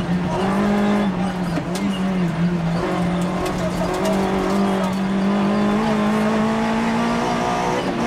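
Rally car engine heard from inside the cockpit, running hard at high revs on a twisty stage. Its pitch dips briefly several times in the first few seconds, then holds high and rises slowly before dropping again near the end.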